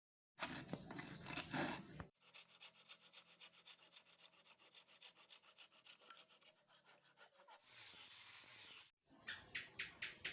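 Wood being worked by hand with quick, even back-and-forth strokes, like sanding or rasping a board. A brief hiss comes near the end, followed by slower strokes of about four a second.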